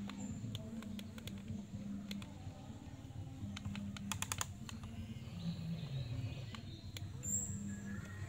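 Toy remote-control excavator's small electric gear motors whirring in short stretches as the arm and bucket move, with sharp plastic clicks from the gearing and a quick run of clicks about four seconds in.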